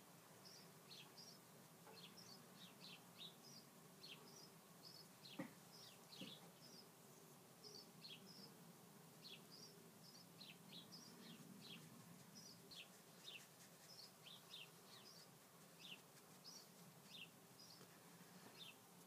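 Near silence: quiet room tone with faint, quick high chirps repeating irregularly throughout, and a faint tap about five seconds in.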